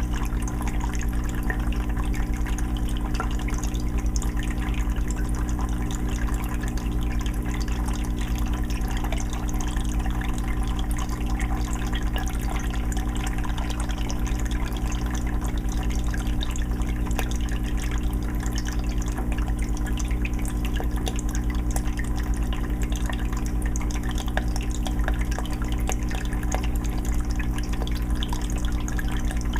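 A 20-gallon aquarium's water filter running: water steadily trickling and dripping back into the tank over a constant low hum.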